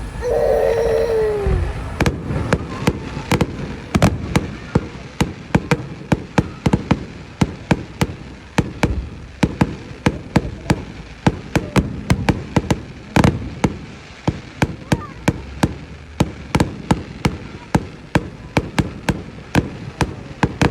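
Fireworks going off in a rapid string of sharp bangs, about two to three a second, starting a couple of seconds in and keeping up steadily.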